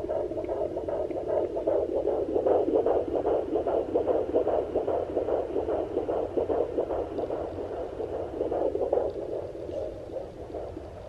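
Fetal heartbeat through the speaker of a Sonoline B home fetal Doppler: fast, even pulsing that weakens near the end as the baby moves away from the probe.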